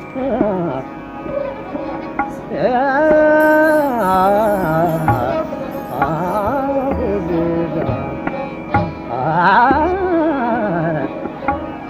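Background music: a singer holds long, ornamented lines that bend and waver in pitch over a steady drone, with occasional drum strokes.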